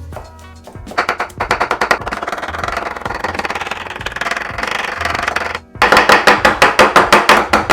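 A sharp kitchen knife rapidly chopping parsley on a cutting board, about six quick even strokes a second. The chopping stops briefly a little past the middle, then resumes louder.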